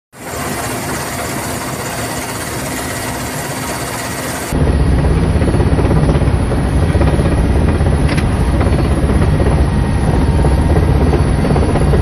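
Helicopter engine and rotor noise heard from inside the cabin, a loud steady drone. About four and a half seconds in it cuts to a louder, lower rotor noise with a fast, even pulse.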